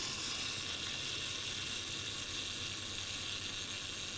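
Steady hiss with a faint low hum: background noise, with no distinct clicks or mechanical sounds.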